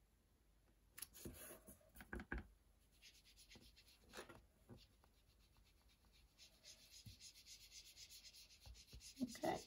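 Foam sponge dauber rubbed back and forth over card stock along the edge of a sticky-note mask, a faint, quick, repeated scratchy rubbing, inking a soft line onto the card. A few soft knocks come about a second in.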